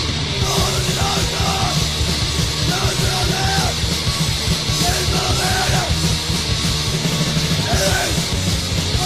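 Hardcore punk recording: fast distorted guitars, bass and drums under shouted vocals.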